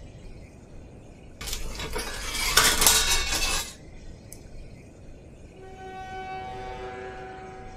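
A loud, rough noise for about two seconds, then, about two seconds later, a sustained metallic ringing of several steady tones as a kitchen knife is drawn from its block: a blade-draw sound effect.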